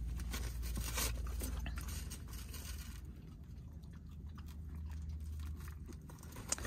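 A beagle chewing a waffle fry, with a run of small bites mostly in the first couple of seconds, then quieter.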